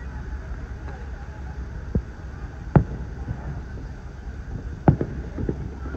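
Aerial firework shells bursting: sharp distant bangs, the loudest about three seconds in and another near five seconds, followed by a few smaller pops, over a steady low rumble.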